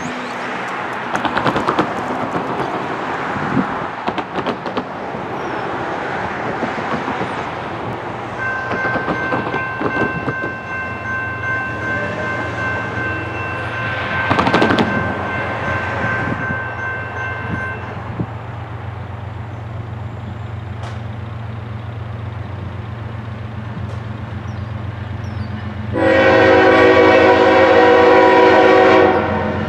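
Norfolk Southern GE ES44AC diesel locomotive approaching, its engine's low steady drone building. Its multi-chime air horn sounds a long, faint blast in the distance, then a loud blast of about three and a half seconds near the end.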